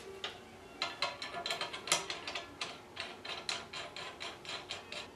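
Rapid, irregular light metallic clicks and ticks, several a second, as the fuel nozzles are spun by hand into their threaded fittings on a Fairchild J44 turbojet's fuel manifold ring, without washers or seals.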